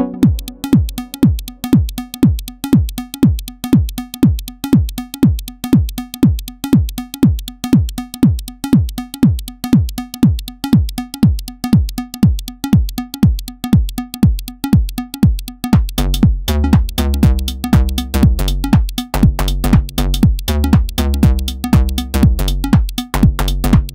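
Elektron Model:Cycles FM groovebox playing a sequenced electronic pattern: a steady, even beat of punchy drum hits, each dropping in pitch. About two-thirds of the way in, a deep bass line that steps between notes comes in under the beat.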